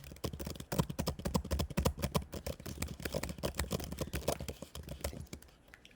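Rapid typing on a MacBook Neo laptop keyboard, a quick run of key clicks that stops just before the end, picked up by the laptop's own built-in microphones.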